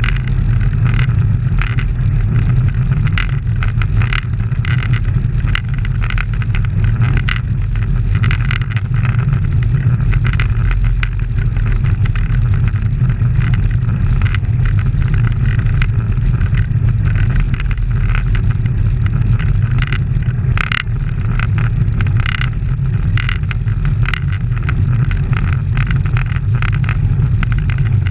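Heavy wind rumble on a bicycle-mounted camera's microphone at road-race speed, with steady road and tyre noise rattling through it.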